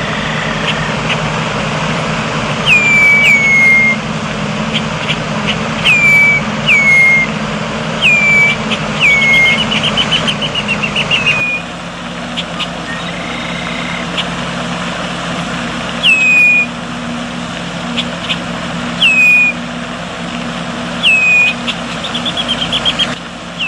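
A bird repeatedly giving short, loud calls that each slide sharply down in pitch, sometimes in quick pairs, twice breaking into a fast chattering run of notes. A steady low rumble runs underneath.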